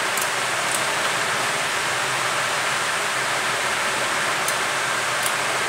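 Steady hiss of background noise, with a few faint light clicks.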